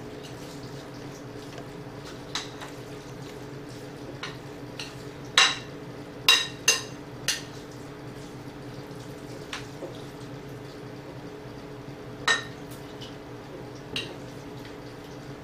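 Large metal spoon stirring wet grated cassava in a glass mixing bowl as water is worked in, with a soft scraping and about seven irregular sharp clinks of the spoon against the glass. A steady low hum runs underneath.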